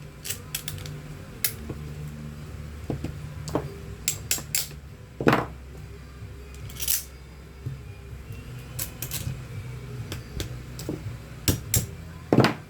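Irregular light metallic clicks and knocks of screws and motor parts being handled and fitted by hand while an electric fan motor is put back together, over a steady low hum.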